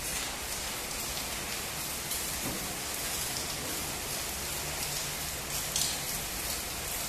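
Stick-welding arc crackling and sizzling steadily as the electrode burns along an upright steel plate, with a brief louder pop about six seconds in.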